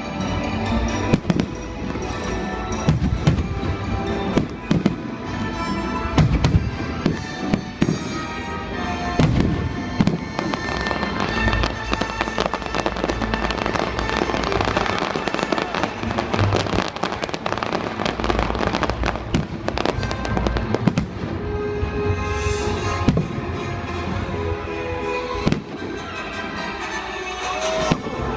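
Aerial fireworks going off in quick succession, with sharp bangs all the way through and a denser run of bursts near the middle, while music plays along.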